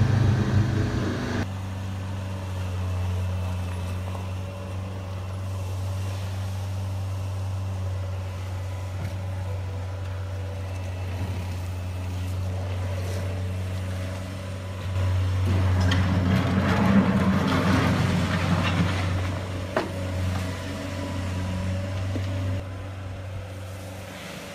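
A motor running steadily with a low hum, swelling louder with a gritty rush of noise from about 15 to 19 seconds in before settling back.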